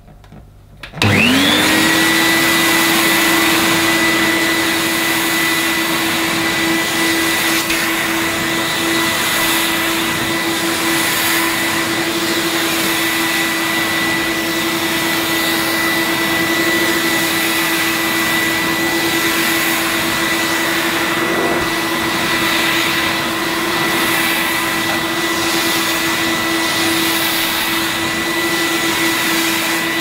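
Cream and brown Numatic Henry cylinder vacuum cleaner switched on about a second in, its motor spinning up quickly to a steady whine over the rush of air. It then runs steadily while an electric power head is pushed over plush pile carpet.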